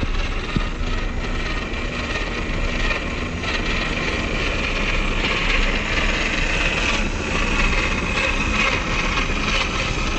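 Electric motor and gear drive of a WPL C74 RC Jimny truck whining steadily as it drives, getting a little louder around halfway through.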